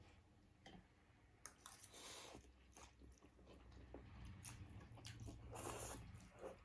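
Faint chewing and biting: a person eating the first mouthfuls of a meal, with small mouth clicks and a few soft hissy stretches.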